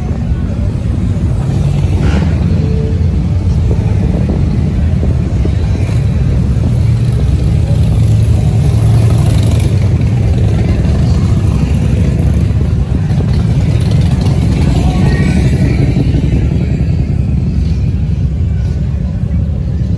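Motorcycle engine running steadily at low speed as the bike rolls along, a dense low rumble heard from the rider's seat.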